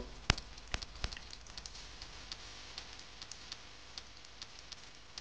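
Near quiet: faint, irregular small clicks and ticks over a low steady hiss, a few slightly stronger in the first second.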